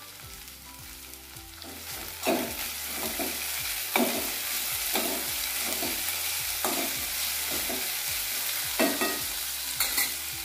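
Chopped capsicum and sliced onion sizzling in hot oil in a kadhai over a full gas flame. About two seconds in, a steel spatula starts stirring them, and the sizzle grows louder, with short scrapes of the spatula against the pan every second or so.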